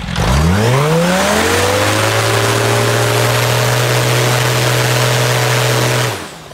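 Edge Performance EPEX 300 Ti turbocharged 1-litre inline-four aero engine, a converted Yamaha Apex snowmobile engine, running on a test stand with its propeller turning. It revs up, rising sharply in pitch over about two seconds, then holds a steady high speed, and cuts off about six seconds in.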